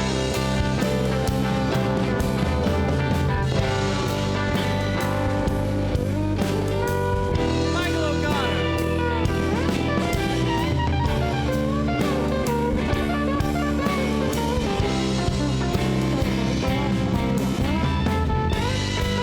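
Live rock band playing an instrumental section: an electric guitar solo with bent notes over bass, drums and keys.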